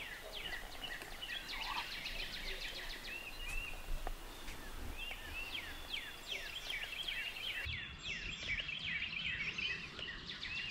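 Songbirds singing in a morning chorus: many quick, overlapping chirps and sweeping whistled notes.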